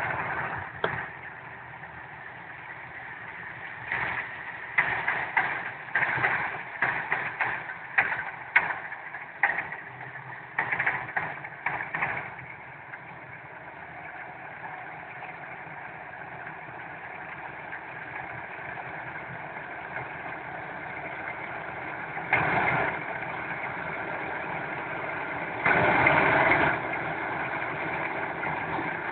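Rice harvesting machine's engine running steadily, with a quick run of short, louder clattering bursts from about four to twelve seconds in and two brief louder surges near the end.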